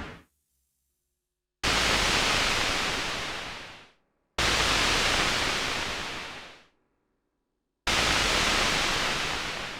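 Synthesizer noise played three times. Each burst starts suddenly and fades out over about two seconds, its hiss growing duller as the highs die away first.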